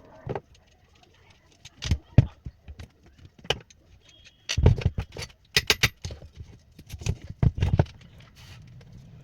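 Irregular metallic clinks and knocks of fan parts and tools being handled, with a quick cluster of clicks about halfway through and another near the end.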